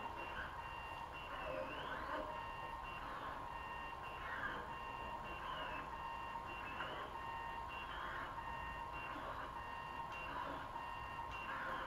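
Delta 3D printer's stepper motors whining in short moves, each move a brief tone that rises and falls in pitch, over a steady high hum; the printer is moving its effector between points during auto-calibration.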